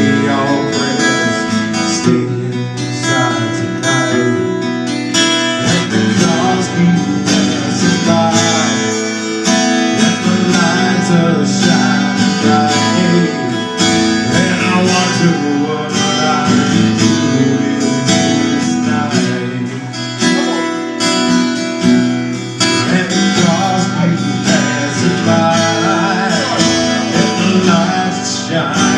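Instrumental break of a song: strummed acoustic guitar with a wavering melodic lead line over it.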